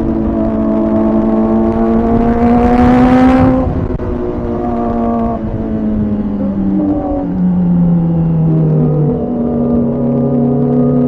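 Kawasaki ZX-4RR inline-four engine under way. It revs up for about three and a half seconds, then the pitch drops and steps lower several more times as the bike slows.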